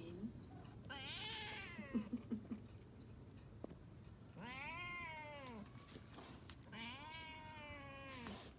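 Domestic cat meowing three times in long, drawn-out calls, the last the longest: a cat begging to be let outside.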